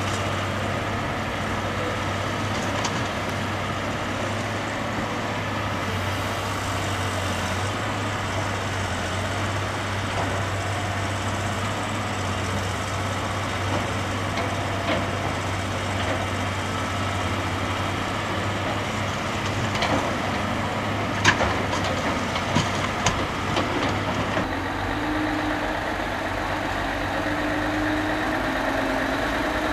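Heavy diesel engines of a CAT 322 LN tracked excavator and a Mercedes-Benz dump truck running steadily while the excavator digs and loads. About two-thirds of the way through come a handful of sharp knocks. Near the end the sound changes to a closer truck engine running.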